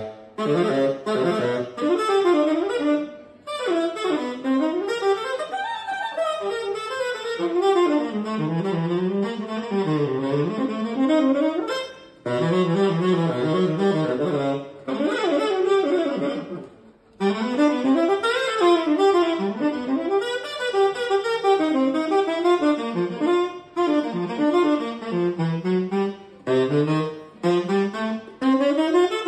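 Unaccompanied tenor saxophone playing fast jazz lines, runs of notes moving up and down, with brief pauses about 3 s, 12 s and 17 s in.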